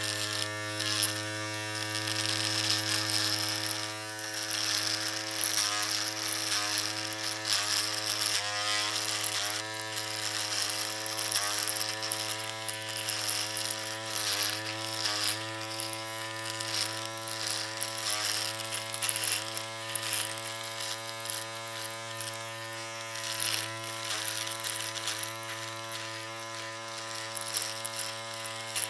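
Electric shaver running with a steady buzzing hum, broken by frequent short crackles and slight momentary dips in pitch.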